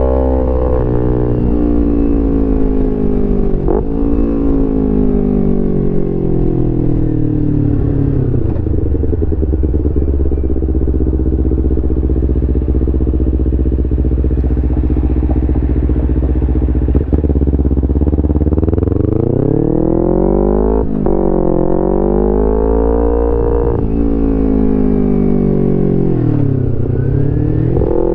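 2011 Kawasaki Ninja 250R's parallel-twin engine through a full Graves racing exhaust. The revs fall away as it slows, hold low and steady for a while, then climb hard through the gears with a quick drop at each upshift in the last third. It eases off and picks up again near the end, with one sharp click partway through.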